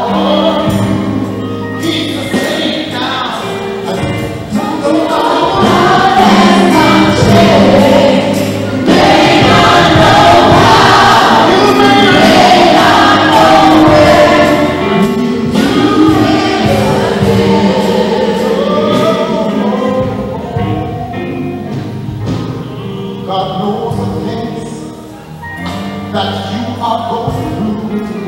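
Live gospel worship music: a small vocal group singing together over a band of acoustic guitar, keyboard, bass guitar and drums. It swells to its fullest about a third of the way in and eases off near the end.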